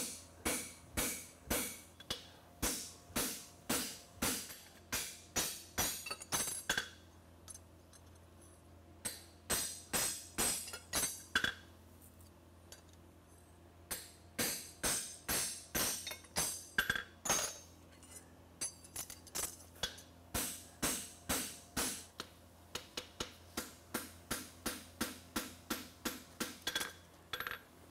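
Hammer blows on steel at an anvil: a hand punch driven into a horseshoe to mark the nail holes, then the forging hammer on the hot shoe. The blows come in runs of quick strikes, about two to four a second, each with a bright metallic ring, with short pauses between the runs.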